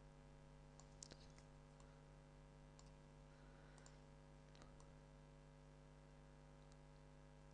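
Near silence with a steady low electrical hum, broken by a few faint computer mouse clicks about one second in and again between about three and five seconds in.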